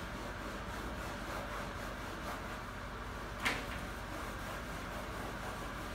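Steady low room hum, with one short sharp clack about halfway through.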